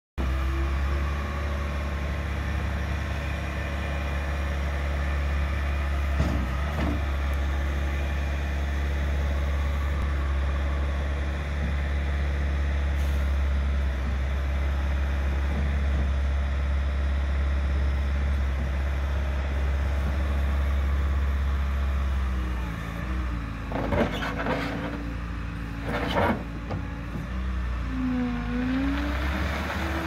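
Bobcat T76 compact track loader's four-cylinder turbo diesel engine running steadily as the machine drives and works. Near the end the engine note wavers and shifts in pitch, with two sharp clanks a couple of seconds apart.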